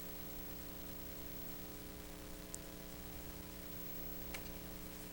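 Steady electrical hum and hiss of the recording background, with two faint ticks.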